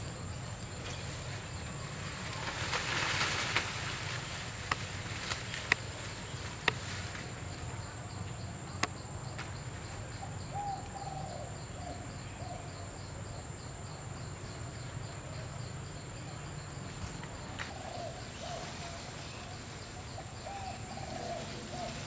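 Outdoor forest ambience: a steady high-pitched insect drone over a low hum. There are a few sharp clicks in the first half, and short faint warbling calls come and go around the middle and near the end.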